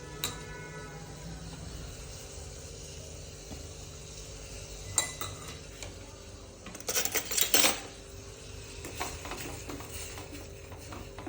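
Metal kitchen utensils clinking and clattering: a struck utensil rings briefly just after the start, there is a sharp knock about five seconds in, and a louder run of clatter comes about seven seconds in, over a low steady hum.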